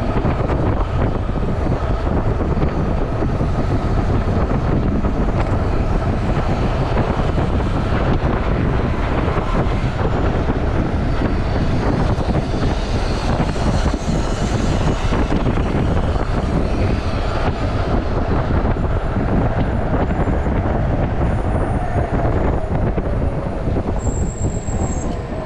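Steady wind rushing over the microphone of a rider on a moving electric bike, heaviest in the lows.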